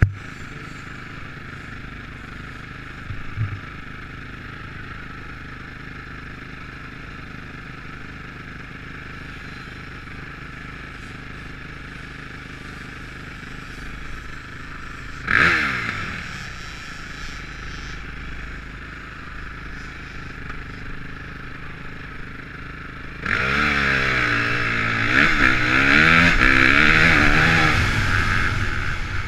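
Motocross bike engine idling steadily, with one sharp throttle blip about halfway through. Near the end it revs hard and the bike pulls away, the engine pitch rising and falling repeatedly.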